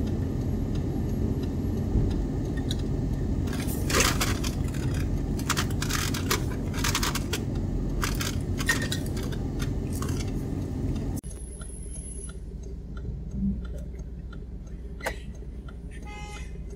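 Car cabin noise: a steady low rumble with a run of sharp metallic clinks and rattles between about four and eight seconds in. About eleven seconds in the rumble drops quieter, leaving a few scattered light clicks.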